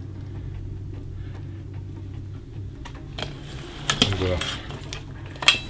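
Hands mixing raw lamb chunks with onions and seasoning in a stainless steel pot, with a few light clicks and knocks against the pot over a low steady hum. A short murmur of voice comes about four seconds in.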